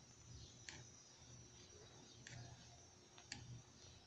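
Near silence, broken by three faint clicks of a metal spoon against the rim of an aluminium pot of coffee.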